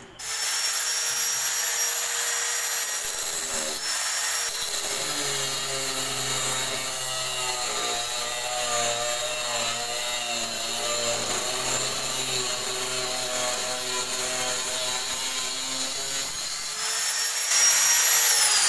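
Angle grinder running at full speed with a steady high whine, its cutting wheel biting into steel for most of the stretch with a lower hum under the load. Near the end the cut gets louder, then the grinder is switched off and its whine falls in pitch as it winds down.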